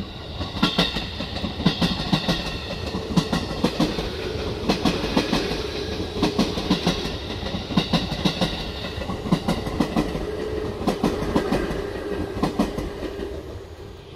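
JR 211 series electric train passing close by, its wheels clicking in repeated groups over the rail joints above a steady running hum. The sound drops away near the end as the last car goes by.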